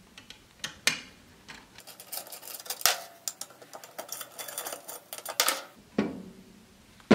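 Small metal clicks, taps and scrapes of a T-handle hex key turning out the screws that hold an HDPE plate on an aluminium radiator guard, with a louder knock about six seconds in as the plate is pulled off.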